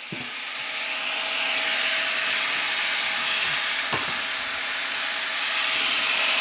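Angle grinder cutting through stainless steel sink sheet: a loud, steady hiss of the disc biting the metal, with a faint steady tone underneath.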